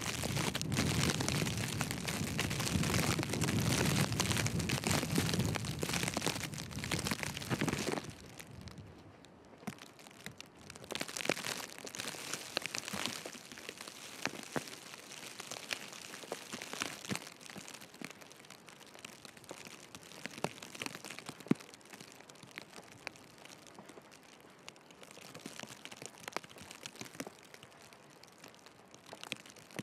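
Strong wind rushing on the microphone for the first several seconds, cutting off suddenly, then footsteps crunching through fresh snow with a soft rustle of snowfall.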